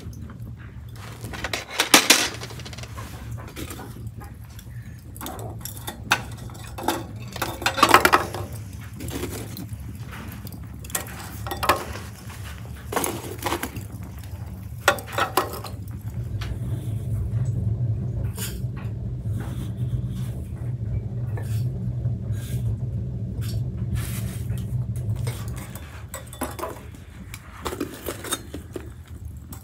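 Kitchen dishes and metal utensils clinking and clattering in scattered knocks during food preparation. A steady low hum joins in for several seconds midway.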